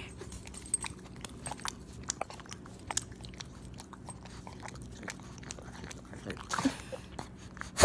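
Pug licking a person's face right against the microphone: irregular wet smacking and clicking mouth sounds, busier about six and a half seconds in. It ends with a single sharp knock, the loudest sound.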